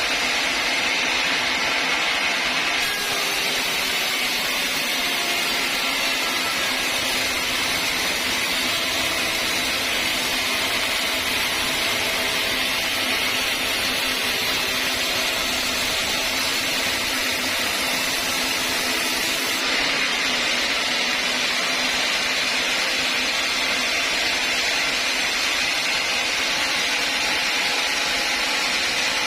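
Sawmill saw running through a teak log, a steady machine noise. It grows brighter about three seconds in and duller again near twenty seconds.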